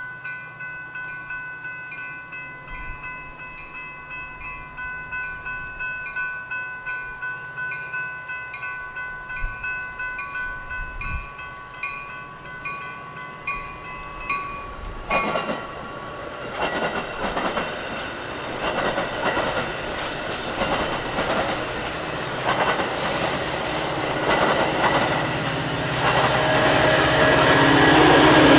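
A steady ringing tone pulses about one and a half times a second. About halfway through, a train comes through close by, its wheels clattering over the rail joints and growing louder toward the end.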